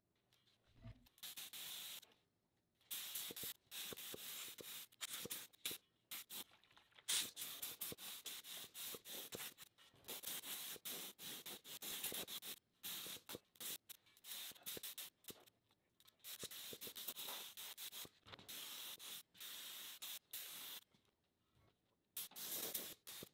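An air-driven HVLP gravity-feed spray gun hissing in many short bursts of a second or two, each one a pass of paint over a steel wheel rim.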